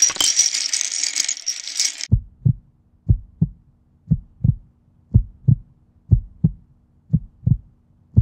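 Loose plastic LEGO bricks clattering and rattling together for about two seconds, then a heartbeat sound effect: a low double thump about once a second over a faint low hum.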